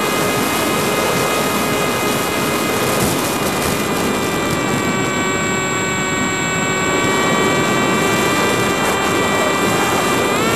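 Quadcopter's brushless motors and propellers whining steadily in flight, with rushing wind noise on the onboard camera's microphone. Near the end the whine rises sharply in pitch as the throttle is punched.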